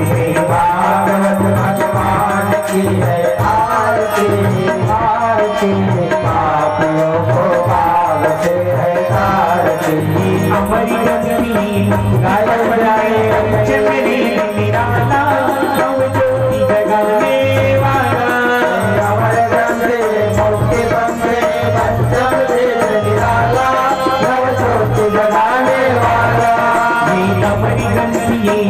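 Live devotional aarti music: tabla keeping a steady rhythm under an electronic keyboard melody.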